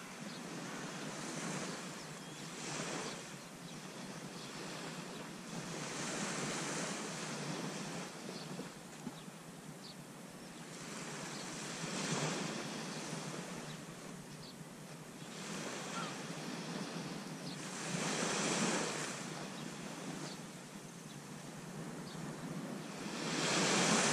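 Small surf breaking and washing up the beach, surging every few seconds, with light wind on the microphone.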